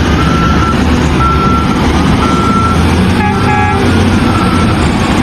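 Heavy vehicle's engine running loudly with its reversing alarm beeping about once a second; a short horn toot a little past three seconds in.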